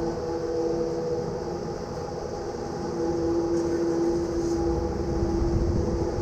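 A steady machine drone with several held tones over a low rumble, the main tone growing stronger about three seconds in.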